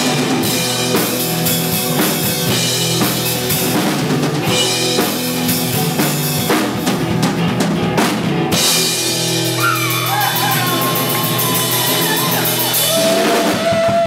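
Live rock band playing: a drum kit driving the beat under strummed acoustic and electric guitars. In the second half a high lead line bends up and down in pitch over the band.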